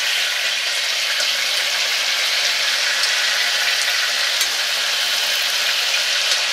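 Pork frying in fat in a small cast-iron pot, a steady sizzle, while pieces of boiled pork are added to it by hand.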